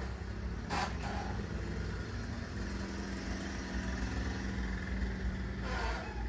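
A steady low engine-like hum, like a motor vehicle idling, with two short bursts of hiss, one about a second in and one near the end.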